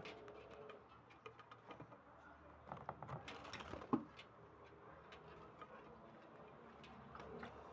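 Pet lovebirds moving about their cage: faint scattered clicks and scratching, with a sharper short sound about four seconds in.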